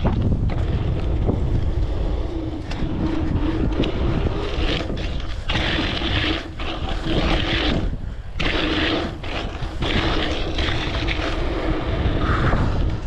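Wind buffeting a GoPro's microphone as a mountain bike is ridden at speed, with steady rolling noise from the tyres.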